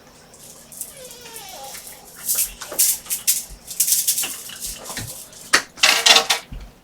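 Sniffing and blowing a stuffed-up, runny nose, with rustling like a tissue being handled; the loudest blow comes near the end.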